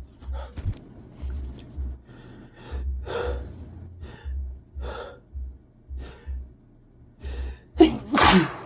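A man's sneezing fit: a string of short, catching in-breaths, then one loud sneeze near the end.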